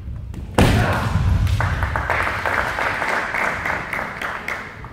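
Kendo exchange: a sudden loud thud of a stamping foot and shinai strike on the wooden floor about half a second in, followed by several seconds of loud shouted kiai that fade near the end.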